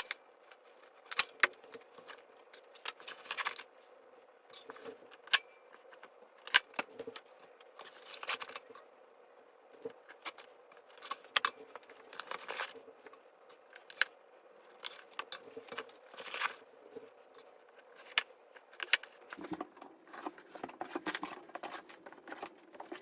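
Irregular sharp clicks, taps and short rustles of dresser parts and packaging being handled and fitted together during assembly.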